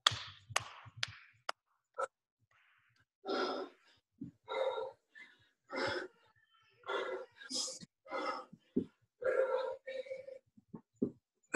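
A person breathing hard during exercise: short, loud breaths and gasps about once a second while doing reverse lunges. A few sharp clicks come in the first second and a half.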